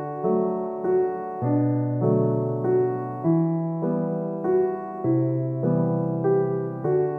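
Background piano music: a gentle melody of notes struck at a steady, unhurried pace over lower notes that change every second or two.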